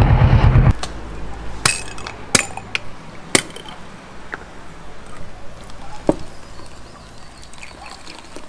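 Motorcycle engine running, stopping abruptly under a second in, followed by a scattering of sharp clinks and knocks, about half a dozen over the next five seconds.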